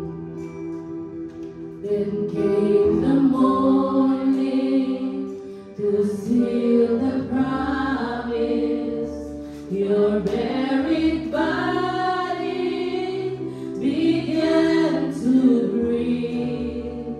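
Live worship song: women's voices singing into microphones over keyboard and guitar accompaniment.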